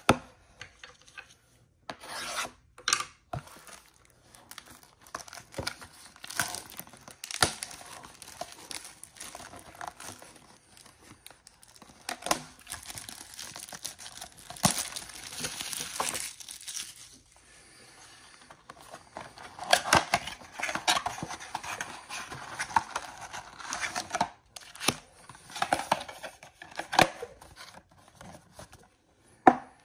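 Cardboard blaster box of trading cards being opened by hand, and its plastic-wrapped card packs handled. Tearing, rubbing and crinkling come in irregular spells, with sharp clicks in between.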